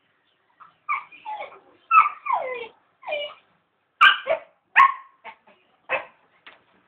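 A puppy yipping and whining in a run of about seven short, high calls, several sliding down in pitch, with the calls thinning out to a few faint ticks near the end.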